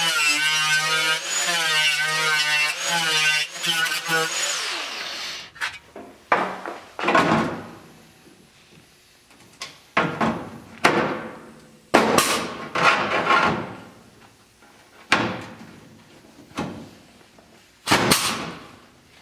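Small rotary grinder with an abrasive disc running on the sill flange, its whine wavering as it loads, then winding down about four seconds in. After that comes a pneumatic punch-flange tool clamped on the sill's bottom flange, cycling about seven times, each stroke a sharp snap that trails off.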